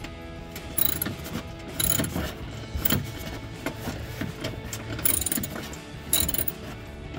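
Hand ratchet wrench clicking in short bursts about a second apart as it turns a headlight mounting bolt, over background music.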